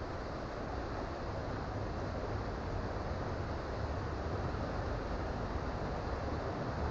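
Creek water rushing steadily over its bed, an even noise with a low rumble underneath.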